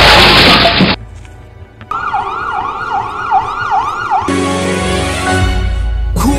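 Edited-in sound effects for a car accident: a loud crash noise that cuts off about a second in, then an emergency-vehicle siren swooping up and down about twice a second. Music takes over near the end.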